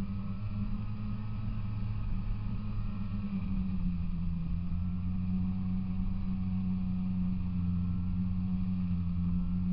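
A snowmobile's two-stroke engine running at a steady speed, holding a nearly even pitch.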